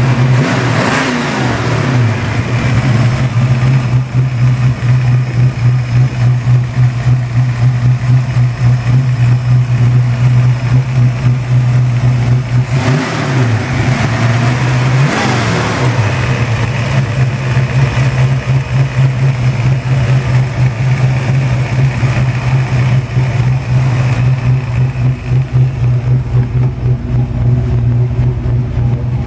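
1966 Ford Mustang's V8 idling steadily, with the throttle blipped briefly near the start and twice about halfway through, the pitch rising and falling back each time.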